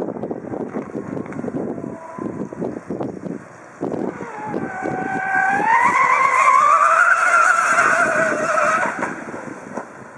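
Electric RC racing boat running at speed: the motor's high whine climbs in pitch about four and a half seconds in, holds, then cuts off abruptly near the end, after a few seconds of choppy, uneven noise.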